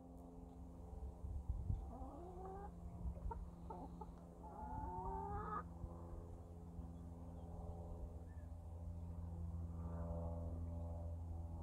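Chickens clucking, with a few short rising calls in the first half, over a steady low hum.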